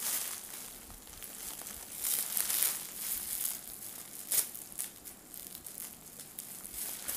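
Plastic parcel wrapping crinkling and rustling as it is handled and pulled open, in irregular bursts that are loudest about two seconds in, with a sharp crackle a little past four seconds.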